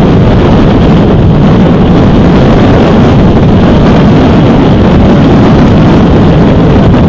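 Wind buffeting an outdoor camera's microphone: a loud, steady low rumble with no other sound standing out.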